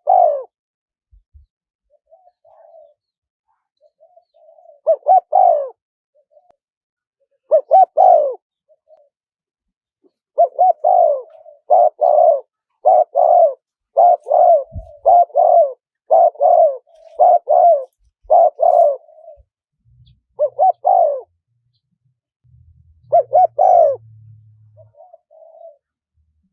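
Spotted dove cooing: short repeated coo phrases, with a long run of many coos in a row in the middle, in the wild-style small-voiced call.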